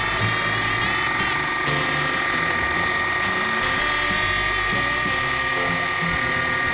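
Sherline milling machine's spindle running with a steady whine while a disc cutter faces the top of an aluminium tailstock block.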